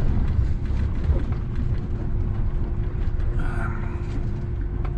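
Heavy 50-tonne lorry's diesel engine and drivetrain rumbling steadily from inside the cab as it moves slowly, with a faint steady whine over the rumble.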